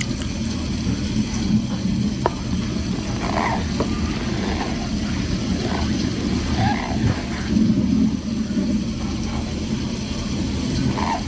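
Close-miked eating sounds: a mouthful of soft mashed potatoes chewed and squished, with wet mouth and lip smacks every second or so, over a steady low rumble.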